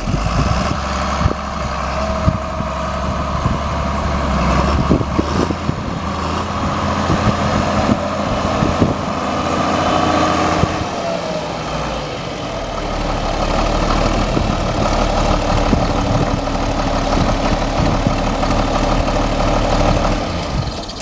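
1981 John Deere 4640 tractor's six-cylinder turbocharged diesel running steadily, its note changing about ten seconds in with a falling whine.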